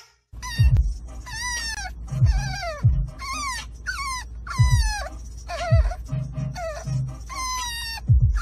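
French bulldog puppy whining: a run of about ten short, high whines, each falling in pitch, over the steady low rumble of the car.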